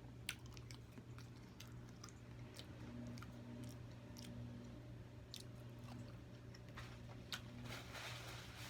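Quiet, close-miked chewing of soft food in sauce, with scattered wet mouth clicks and smacks that come more often near the end.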